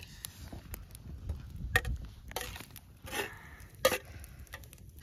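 Scattered clinks and scrapes of a metal utensil on a steel pan as chopped coriander is scraped into a pot of cooking curry.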